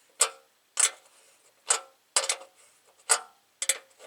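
Hammer blows on a metal truck fender, beating out a dent: about seven sharp clanks at uneven intervals, each with a short metallic ring.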